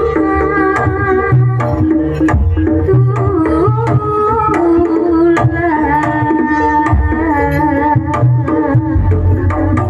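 Jaranan accompaniment music: kendang hand drums play a driving rhythm under a sustained melody line that holds notes and slides between them.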